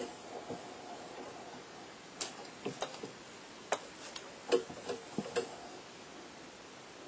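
Light, irregular clicks and taps from a palette knife and a sheet of painting paper being handled, about ten of them bunched in the middle seconds, over a faint steady hiss.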